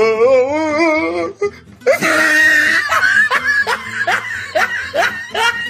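A person laughing hard over background music: a long wavering laugh, then after a short pause a rapid run of laughs, about three a second.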